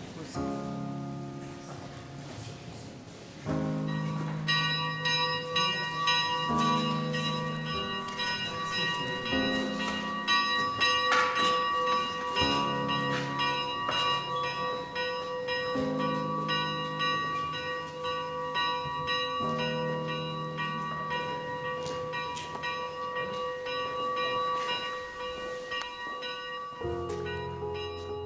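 Cemetery funeral bell in a wooden bell frame, rung by hand with a rope, tolling for the funeral. It starts about three and a half seconds in and rings on steadily, over slow music chords that change every few seconds.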